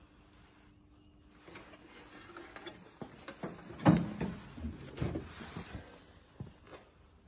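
Scattered knocks, clicks and rustling, with one loud knock about four seconds in, dying away near the end.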